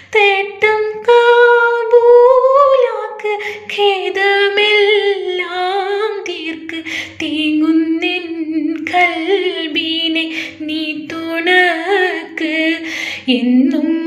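A woman's voice humming a slow, wordless melody with a wavering pitch, between the verses of a Malayalam devotional song.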